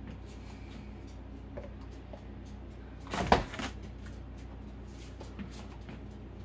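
Lidded food containers being put into a refrigerator: faint small knocks and one louder clunk a little past three seconds in, over a steady low hum.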